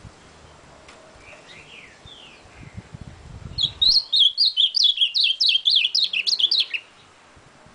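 A caged male ultramarine grosbeak (azulão) sings a few soft notes, then a loud warbled phrase of quick, falling whistled notes lasting about three seconds, starting about halfway in.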